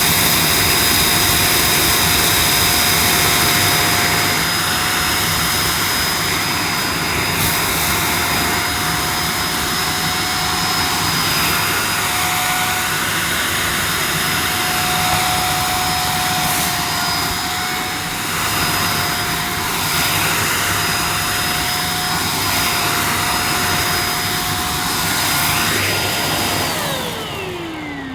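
A 600-watt EGL handheld mains vacuum cleaner runs steadily as it picks up a pile of dirt, a constant high motor whine over the rush of air. Near the end it is switched off and the whine falls in pitch as the motor spins down.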